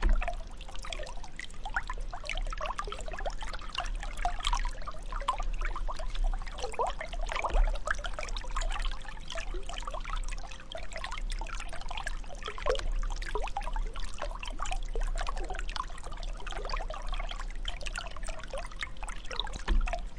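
Water trickling and bubbling steadily, a continuous stream of small gurgles and splashes.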